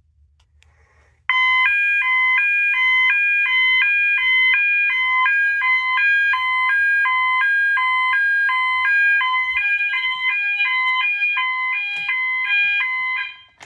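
Fire alarm notification sounder going off in a fast alternating high-low two-tone pattern. It starts about a second in and stops suddenly near the end. The alarm means the smoke detector under test has gone into alarm.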